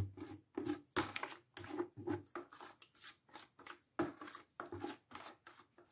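A spatula scraping thick soap batter from the inside of a plastic bucket in quick, repeated strokes, a few a second, stopping near the end.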